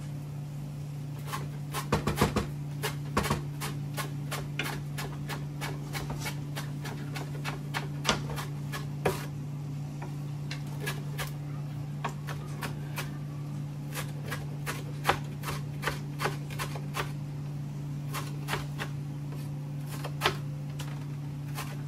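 Knife chopping cilantro on a cutting board: irregular sharp knocks, a few a second, with a louder flurry about two seconds in, over a steady low hum.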